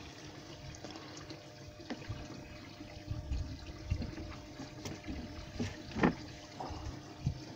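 Water trickling and splashing close by, with scattered knocks and handling noises; one sharper knock comes about six seconds in.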